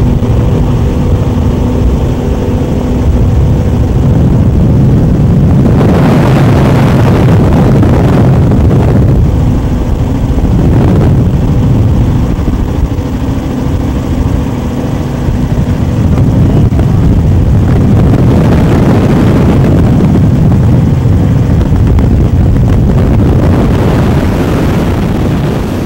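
Donzi 43 ZR and 38 ZR offshore powerboats running at high speed: a loud, steady deep engine drone with swells of rushing noise, fading out at the very end.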